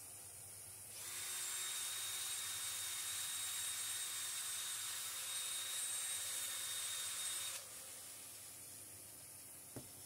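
A small steel screw is spun in a Makita cordless drill and held against a running sanding belt to polish it: a steady hissing grind with a thin high whine that starts suddenly about a second in and cuts off about six seconds later. A single light knock follows near the end as the drill is set down on the machine.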